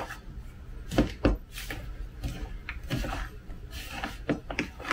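Hands mixing a crumbly butter, flour, brown sugar and walnut topping in a plastic bowl: rubbing and crumbling with a few scattered knocks of the bowl and nuts, the strongest two about a second in.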